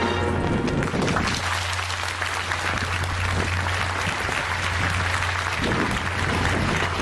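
Background music stops about a second in and a steady rushing outdoor noise takes over, with a constant low hum underneath.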